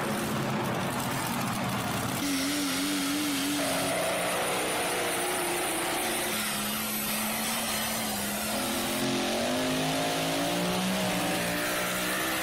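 Pulling trucks' engines revving hard under load, edited together from several runs: the sound changes abruptly about two seconds in, and the engine pitch climbs in the second half.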